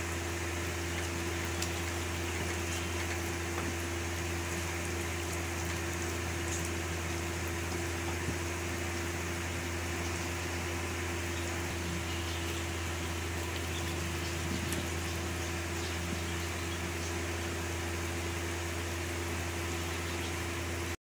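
Chicken curry simmering in a pan, with a faint even sizzle and a few light ticks over a steady low hum.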